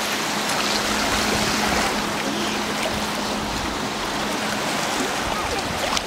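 Shallow sea water lapping and splashing at a pebbly shoreline, stirred by a small child moving about in it. A faint steady low hum sits under it and stops about five seconds in.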